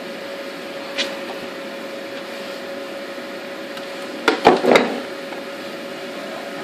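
Kitchen items being handled while tidying the counter: a single click about a second in, then a quick clatter of three knocks a little after four seconds, over a steady appliance-like hum with a faint steady tone.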